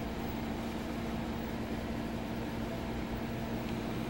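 Steady background hum with one constant low tone and an even hiss, unchanging throughout.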